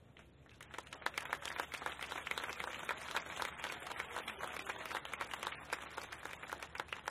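Crowd applauding, a dense patter of many hands clapping that starts about a second in.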